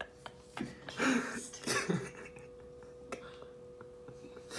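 A few short, breathy vocal sounds from a person, like coughs or throat clearing, in the first two seconds, then quiet over a faint steady hum.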